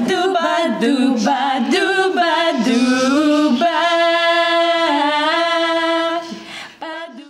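Voices singing unaccompanied, moving through a short melodic phrase and then holding one long steady note in the second half.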